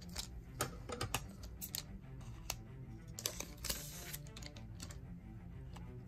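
Dragon Ball Super Card Game trading cards being handled in a freshly opened booster pack: an irregular series of light clicks and snaps as the cards slide and flick against each other, with a brief rustle a little before the four-second mark. The clicks thin out in the last couple of seconds. Faint background music runs underneath.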